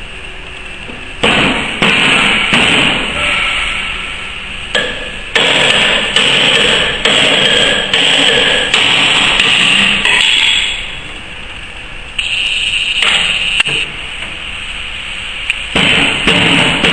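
Metal clanking and scraping as steel parts of a ZP9 rotary tablet press are worked by hand with tools while its punches and dies are fitted. The sounds are a series of sharp knocks, each followed by a short rasping scrape, coming irregularly many times.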